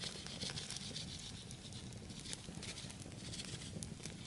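Wood campfire crackling: a steady hiss with scattered sharp pops.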